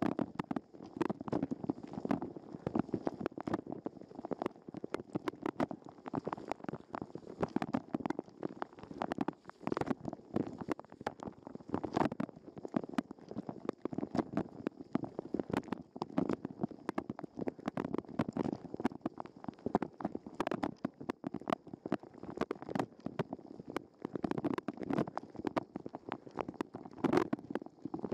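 Dishwasher wash cycle heard from inside a waterproof sports-camera housing: jets of water from the spray arms pelt and splash against the housing and the dishes in a dense, irregular, muffled patter.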